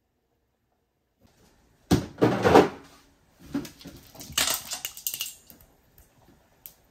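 Ice cubes dropped into a stainless-steel bowl of water, clattering and splashing in two bouts, the first about two seconds in and a second, longer one from about three and a half seconds.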